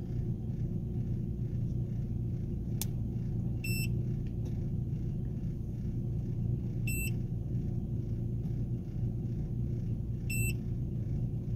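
Three short electronic key beeps from a Vident iEasy310 OBD-II code reader, about three seconds apart, as its menus are stepped through. Under them is the steady low rumble of the Chevrolet's engine idling.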